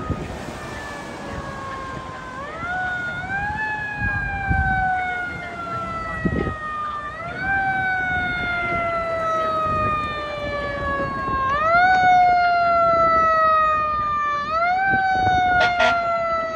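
Fire truck siren wailing, each cycle rising quickly and falling slowly about every four seconds, growing louder as the truck approaches, over passing street traffic.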